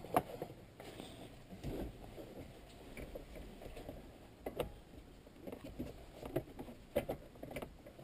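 Faint, scattered clicks and light knocks of plastic dashboard trim being handled and fitted into place.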